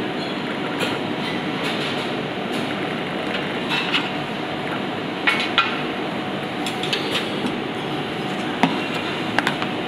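Steady rush of kitchen ventilation, with about eight scattered light clicks and knocks as a metal tray and small items are handled on a stainless-steel counter.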